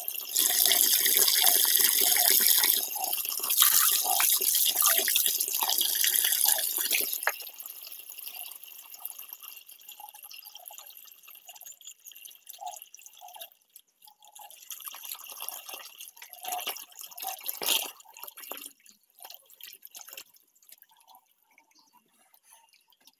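A stream of water pouring and splashing into a shallow inflatable paddling pool. About seven seconds in the sound drops sharply to quieter trickling and scattered drips as the flow eases.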